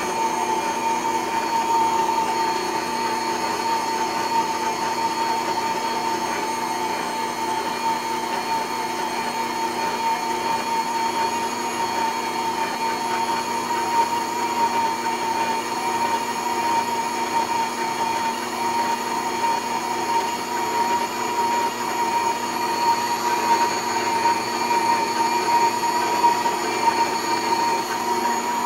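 Mondial Profissional Eletrônica Premium stand mixer running steadily at a slightly raised speed, its dough hook kneading a heavy bread dough: a steady motor whine with a mechanical drone underneath. The motor handles the dough without straining.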